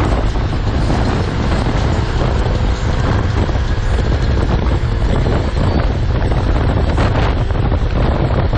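Wind buffeting a motorcycle-mounted GoPro's microphone as the motorcycle rides at speed, a steady low rumble with the bike's engine and road noise beneath it.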